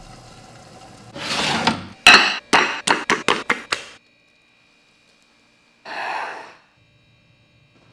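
A short whooshing burst, then about nine quick, sharp knocks, each following the last a little faster, and after a pause another short whoosh.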